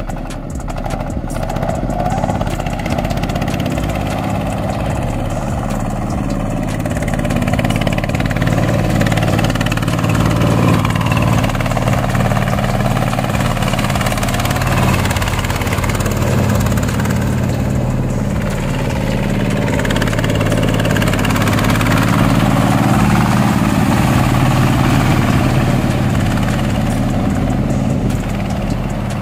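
A boat tractor's 20 hp Chinese diesel engine running steadily, its sound swelling slightly a few times.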